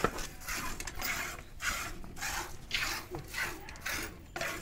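Milk squirting from a water buffalo's teats into a steel bucket during hand milking: short hissing jets in a quick, steady rhythm of about two or three a second.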